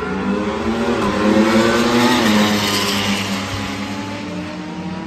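Racing motorcycle passing by at speed. Its engine note swells to a peak about a second and a half in, then drops in pitch and fades as it moves away.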